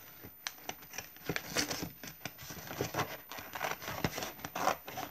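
A thin cardboard snack box being handled and cut with scissors: irregular crinkling, scraping and small snips.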